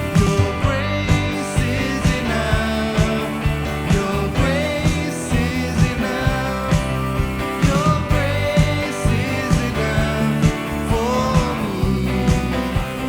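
Worship song: singing over instruments, with a steady beat.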